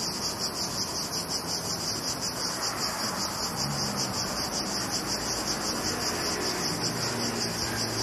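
Cicadas singing: a steady, high, rapidly pulsing buzz.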